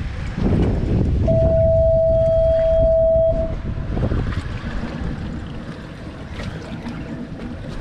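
Wind buffeting the microphone aboard a boat on the water, a dense low rushing noise. About a second in, a steady single-pitched tone sounds for about two seconds. After that the rushing eases somewhat.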